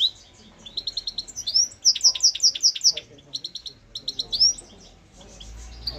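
European goldfinch singing: a fast, high twittering run of short notes with quick trills and a few rising notes, in phrases that fade out near the end.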